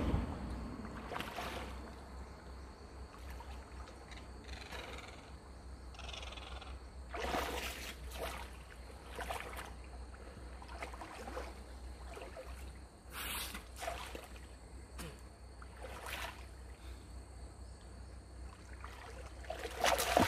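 Water sloshing and splashing around a person wading chest-deep through a creek, in short irregular splashes, louder near the end, as they pick their way over a slippery stony bottom.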